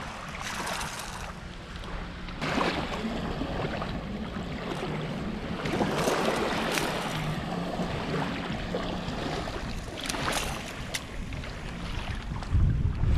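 Small waves washing and lapping at the water's edge of a sandy beach, with splashing in the shallows. Wind gusts on the microphone near the end.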